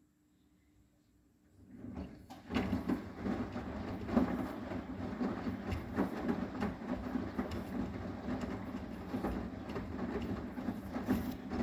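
Arçelik 9120M front-loading washing machine's drum starting to turn about two seconds in after a pause, tumbling wet laundry with a steady rumble and many small knocks: the wash action of the cycle.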